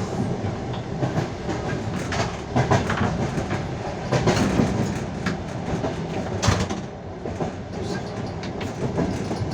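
Passenger train's wheels knocking over rail joints, heard from aboard the moving train: a continuous rolling rumble with a string of sharp, unevenly spaced clacks, the loudest about six and a half seconds in.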